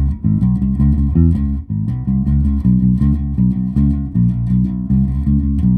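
Electric bass guitar played with a pick through an amp: a quick, steady run of short picked low notes, with the Ashdown Dual Bass Compressor's settings not engaged.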